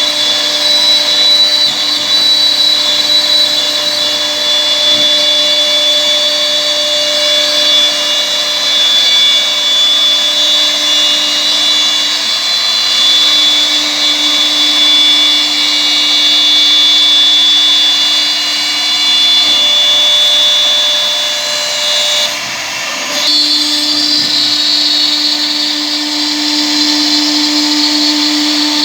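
CNC router's 2.0 kW air-cooled spindle running at high speed and cutting wood: a steady, high-pitched machine whine with a constant tone. A little over twenty seconds in, the level dips briefly, then the whine comes back stronger.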